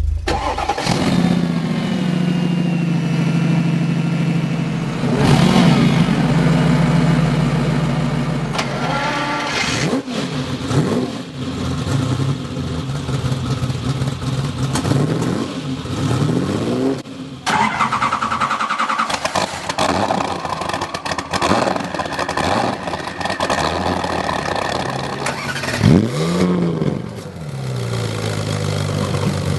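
An engine running and revved several times, its pitch rising and falling back with each blip of the throttle.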